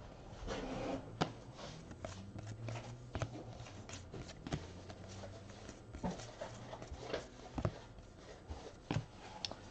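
Faint clicks and rustles of baseball trading cards being handled and flipped through, over a low steady hum.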